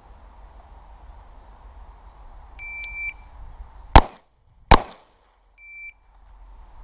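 Shot timer's start beep, then two pistol shots fired in quick succession about three-quarters of a second apart, then a short beep at the same pitch marking the end of a three-second par time.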